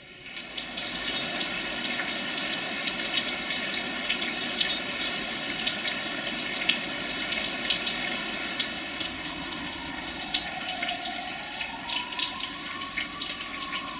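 Heavy rain pouring steadily, thick with sharp drop splashes, coming in suddenly about half a second in. A faint tone rises and falls near the end.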